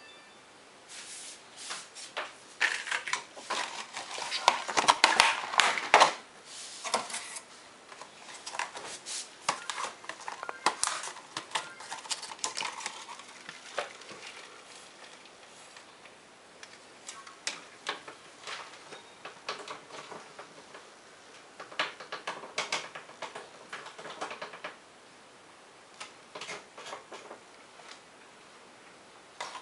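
Irregular bursts of clicking, tapping and rattling from a clear plastic feeder tub of insects being handled at a glass terrarium, with quieter gaps between the bursts.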